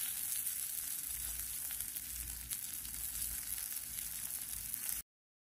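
Bacon-wrapped jalapeno poppers with Parmesan sizzling steadily on a Blackstone flat-top griddle. The sizzle cuts off abruptly about five seconds in.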